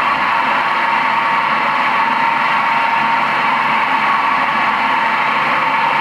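Nagema bowl cutter running at a steady speed, its rotating knives chopping meat in the turning bowl into sausage mix for gothaj. A loud, even whir that does not change.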